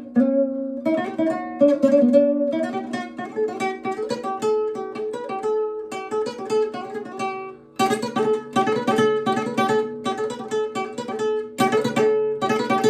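Acoustic guitar played fingerstyle with free strokes (tirando) of the index and middle fingers: a run of quick single notes, with a brief break about eight seconds in. The free stroke gives a little less volume and a slightly muted tone.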